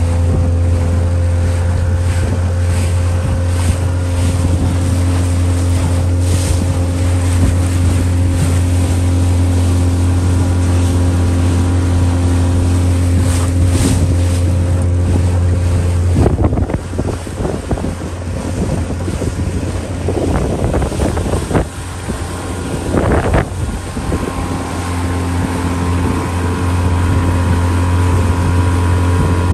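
Small motorboat's engine running with a steady low drone under way, with wind buffeting the microphone. The drone falters briefly a little past halfway, then runs on.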